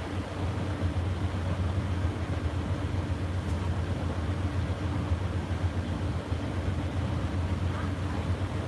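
Steady low drone of an Amtrak Superliner passenger train idling at the platform, its engines and on-board equipment running without change.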